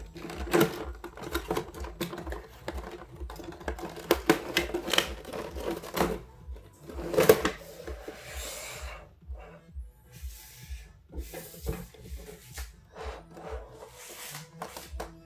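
Background music with a steady beat, over irregular clicks and rustling from packaging being handled during an unboxing.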